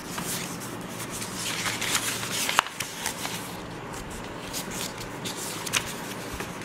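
Sheets of paper on a clipboard being rustled and flipped over, with a sharp tap about two and a half seconds in and another near the end.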